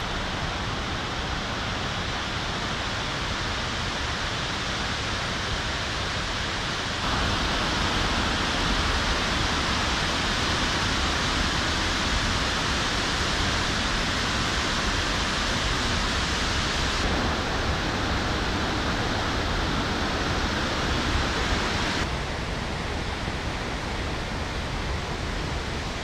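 Steady rush of water from Shiraito Falls, a wide curtain of many thin spring-fed streams pouring about 20 m down a cliff face. It gets louder about seven seconds in and somewhat quieter again over the last few seconds.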